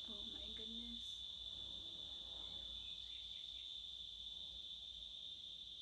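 Steady, high-pitched insect chorus, one continuous shrill band with no break.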